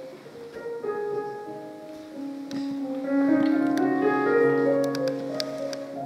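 Piano playing a slow jazz-style improvisation in held chords, swelling louder about three seconds in, with a few light clicks near the end.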